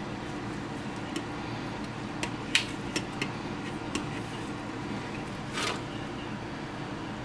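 Light clicks and taps of a plastic measuring scoop and stirring stick against a plastic tub as epoxy bedding compound is scooped out, the loudest about two and a half seconds in, then a short scrape near the end. A steady low hum runs underneath.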